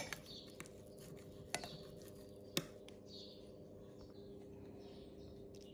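A few sharp clicks of a metal knife against a ceramic plate, the loudest right at the start and two more about a second and a half and two and a half seconds in, over a faint steady hum and a few faint high chirps.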